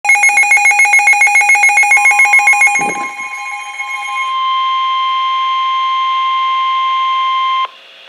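NOAA weather radio sounding its tornado-warning alert: a loud, fast electronic beeping, about seven or eight beeps a second, then from about two seconds in a single steady high alarm tone that holds until it cuts off shortly before the end.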